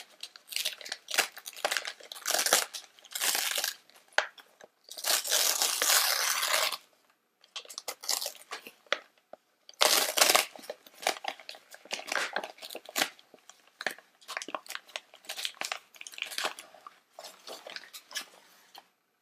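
Glossy gift-wrapping paper being torn open and crumpled by hand: a run of irregular rips and rustles, with the longest tear, almost two seconds long, about five seconds in.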